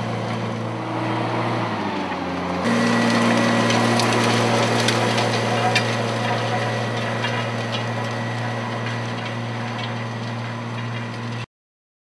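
JCB Fastrac tractor engine running steadily under load as it pulls a disc cultivator through soil, with the discs and packer roller crunching and clattering over the ground. It jumps louder about two and a half seconds in and cuts off abruptly near the end.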